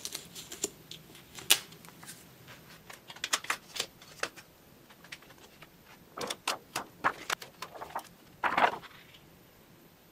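Paper and clear plastic overlay sheets handled on a tabletop diagram: scattered crackles and taps as sheets are lifted off and laid down, with a longer rustle of sliding plastic after about eight seconds.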